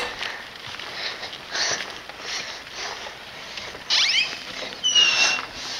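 Soft rustling of movement, then, about four seconds in, an interior door being opened by its knob, with a few short high squeaks and one longer squeak that falls and then holds.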